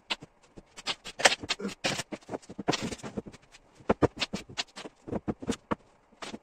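Irregular knocks and clatter of a wooden armchair frame being handled and turned on a wooden workbench, with a brief rustle of the leather cover about halfway through.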